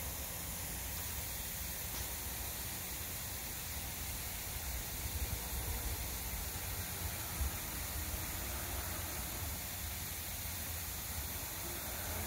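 Steady outdoor background hiss over a low rumble, with a few brief soft bumps about halfway through.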